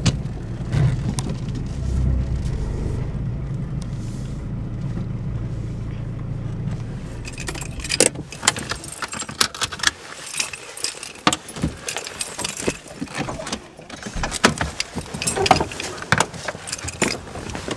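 Peugeot 106's engine running steadily at low revs, dying away about seven seconds in as it is switched off. Then a long run of small metallic clicks and jingles from the car keys being handled.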